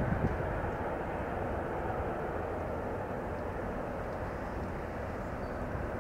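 Jet engine noise of a Jet Airways Boeing 777-300 climbing out after takeoff: a steady, deep rumble that eases slightly in the first second and then holds level.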